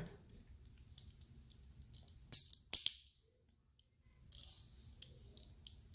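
Plastic LEGO pieces clicking and clattering as they are handled, with two sharper clicks a little over two seconds in.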